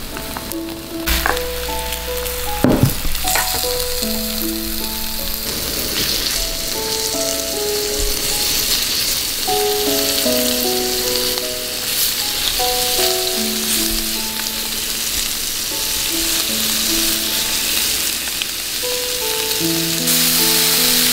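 Thin-sliced pork and thick deep-fried tofu sizzling in oil in a frying pan, the sizzle growing louder near the end. A couple of knocks about one and three seconds in.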